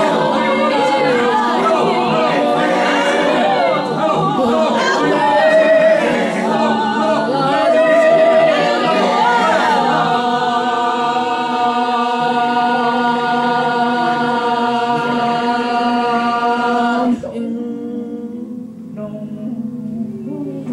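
Mixed choir improvising a cappella: many voices sliding and wavering in pitch, then settling about halfway through into a steady held chord. The chord cuts off abruptly a few seconds before the end, leaving a few quieter low voices holding notes.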